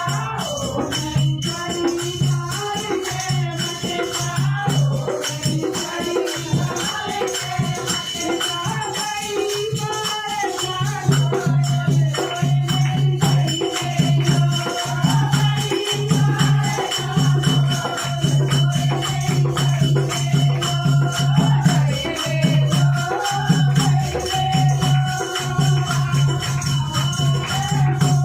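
Hindi devotional bhajan: a woman singing over a steady beat of rattles and tambourine-like jingles. A deep pulsing drum-like beat comes in more strongly about 11 seconds in, and the music gets louder.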